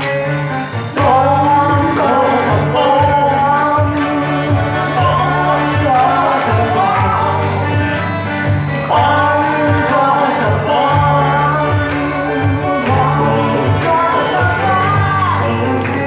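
A song sung over instrumental accompaniment, with a rhythmic bass line under the vocal melody.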